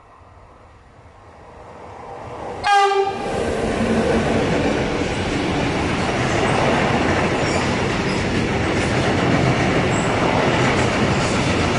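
Electric locomotive gives one short horn blast as it passes. Then its freight train of covered sliding-wall wagons rolls by with a steady loud rumble and rattling of wheels on the rails.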